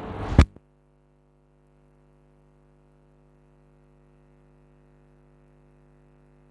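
A single loud knock, like a clip-on microphone being handled, then the sound drops to near silence with a faint steady electrical hum.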